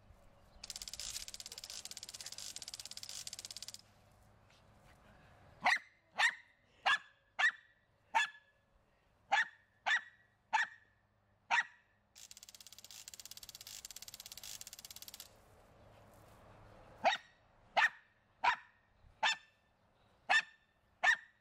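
Small dog barking in two runs of sharp, quick barks, about nine and then about seven. Between the runs a motion-activated garden sprinkler fires twice, each time a spraying hiss with a fast ticking that lasts about three seconds.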